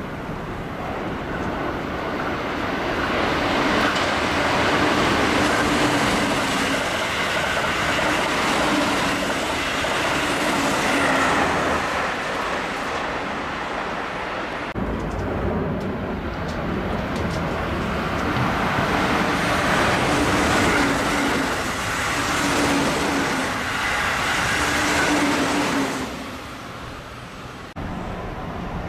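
Keihan Main Line electric trains running through a station at speed without stopping: a loud rush of wheels on rail with a repeating low beat. It swells, cuts off sharply about halfway through, swells again, and falls away near the end.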